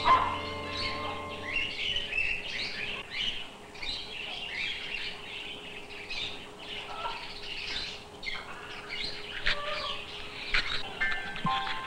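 Many small birds chirping and twittering at once, a busy overlapping chatter of short high chirps, with a few sharp clicks near the end.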